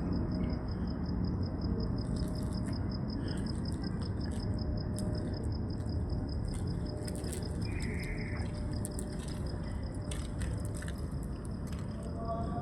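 A cricket trilling steadily, a continuous high-pitched pulsed chirp of many pulses a second, over a constant low rumble of background noise.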